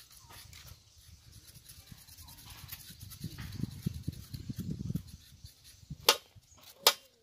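Kitchen knives scraping and peeling potato skins by hand, a faint scratchy sound, with a low rumbling noise in the middle and two sharp clacks near the end.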